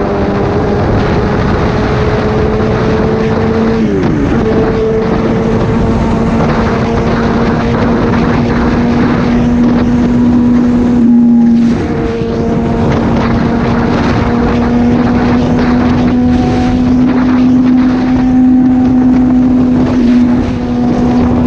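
Motor vehicle engine running at a steady speed, with a steady drone whose pitch dips briefly about four seconds in, along with wind noise.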